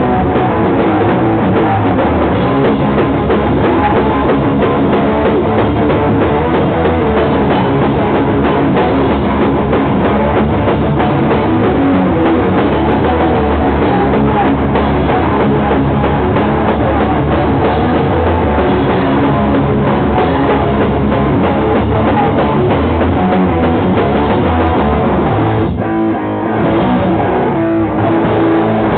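Live rock band playing loud, with electric guitars and a drum kit, the sound dipping briefly in a short break near the end.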